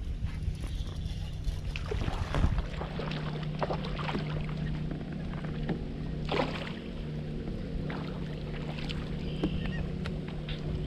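Water sloshing against a fishing kayak and wind on the microphone, with a steady low hum underneath. Scattered knocks and clicks from handling the rod and reel are loudest about two and a half seconds in and again around six seconds.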